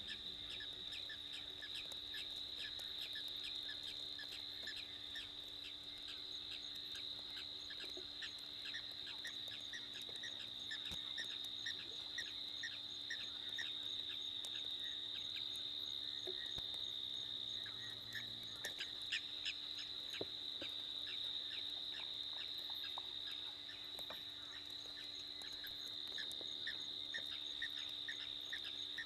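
Night chorus of insects: a steady high-pitched trill with a regular chirping pulse about three times a second, over a faint steady low hum.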